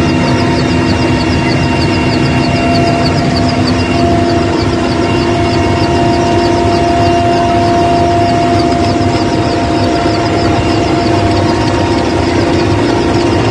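Military helicopter running steadily, heard from inside the cabin at the open door: a loud, even whine with several held tones over a rushing noise, and a fast regular pulsing high in pitch.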